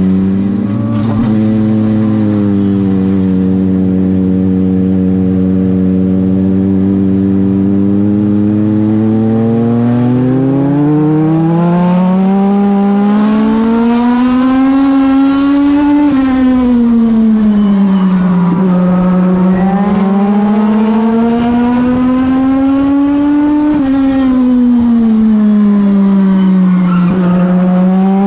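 A Legend race car's Yamaha four-cylinder motorcycle engine, heard loud from inside the cockpit. It holds a steady low note for about ten seconds, then twice revs up and eases back down over several seconds each time, and starts to climb again near the end.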